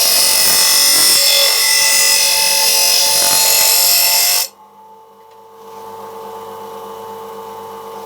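Mac Allister MBGP150B bench grinder's wheel grinding a metal blade to sharpen it, a loud steady hiss over the motor's hum. The grinding stops suddenly about four and a half seconds in, leaving the grinder's motor running on with a steady hum.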